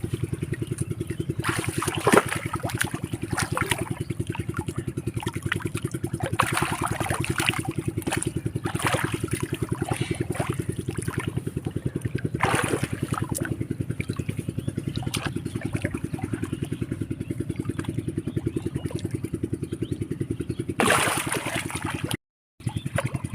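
A small engine running steadily with an even, rapid pulse. Several short, louder bursts of noise break over it.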